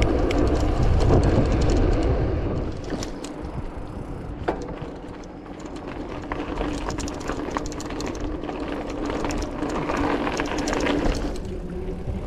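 Mountain bike on Vittoria Terreno tyres riding a dirt track, heard from an action camera. Wind rumbles on the microphone, strongest in the first two seconds and then easing, with tyre noise and many scattered clicks and rattles from the bike and the ground.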